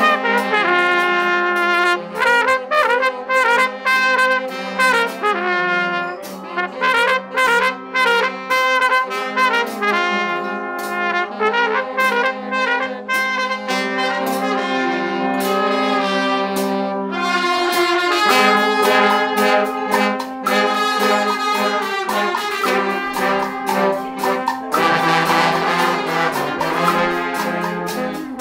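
Guggenmusik carnival band playing loudly: trumpets and trombones blaring held chords over bass drum, snare and cymbal beats, striking up suddenly at the start.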